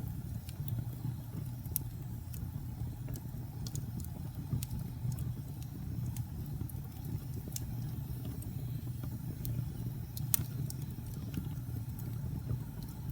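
Wood fire crackling: scattered sharp pops and snaps over a steady low rumble of the flames, with one louder pop about ten seconds in.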